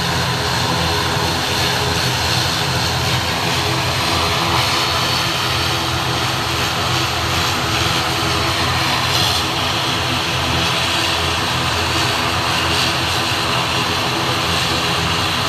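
ATR 72 twin-turboprop airliner's engines running with propellers turning: a steady drone of several low tones under a high hiss.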